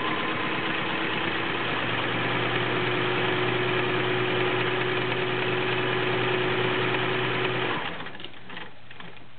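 Kenmore 1660 all-metal sewing machine's 1-amp motor running steadily as the needle stitches a multi-point zigzag, stopping about eight seconds in, followed by a few light clicks.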